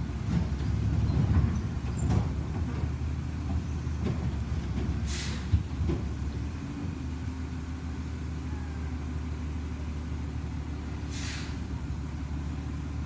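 Refuse truck's diesel engine running steadily at a stop, with clanks and knocks in the first few seconds, a sharp knock about five and a half seconds in, and two short air-brake hisses about six seconds apart.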